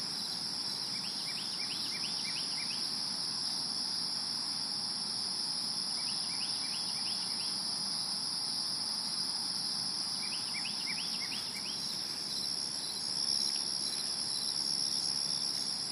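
A steady, unbroken chorus of insects shrilling at a high pitch. Over it a bird sings a short phrase of about six quick, sliding notes three times, roughly every four to five seconds.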